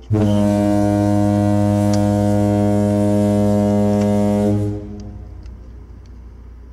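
Foghorn sound effect: one long, steady, low horn blast lasting about four and a half seconds, used to cover a cuss word.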